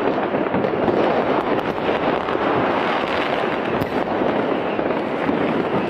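Many fireworks and firecrackers going off at once, blending into a steady, dense crackle of pops with no single bang standing out.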